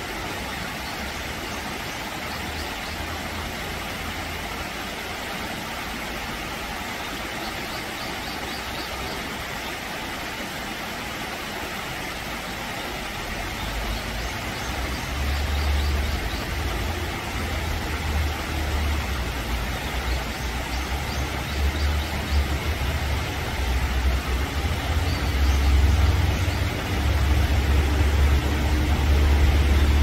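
Brook water running over rocks and small cascades: a steady rushing hiss. About halfway through, an uneven low rumble comes in and grows louder toward the end.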